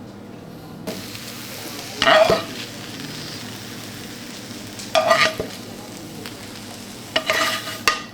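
Eggs sizzling in a hot frying pan, with a utensil stirring and scraping across the pan three times.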